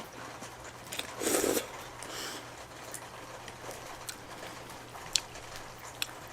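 Close-miked eating sounds from a mouthful of cheesy spicy noodles: small wet mouth clicks and smacks, with a brief louder burst about a second in.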